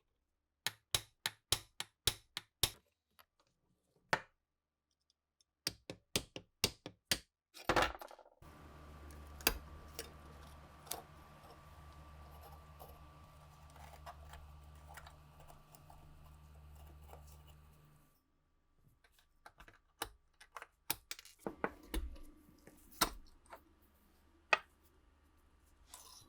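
Runs of sharp clicks and taps, like small metal parts being handled and fitted, with a steady low hum for about ten seconds in the middle.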